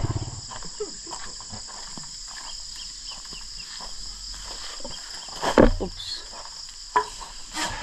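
Steady high chirring of crickets and other insects, with an engine fading out right at the start. A few short, sharp sounds stand out about five and a half and seven seconds in.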